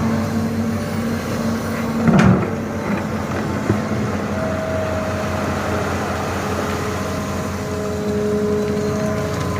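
Excavator's diesel engine running steadily, with one loud knock about two seconds in and a thin whine over it in the second half.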